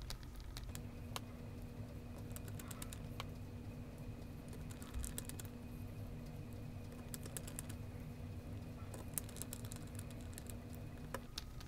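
Faint, irregular small clicks and ticks of a precision screwdriver seating and driving small screws into a lens's metal rear mount. A faint steady hum sits underneath, starting about a second in and stopping near the end.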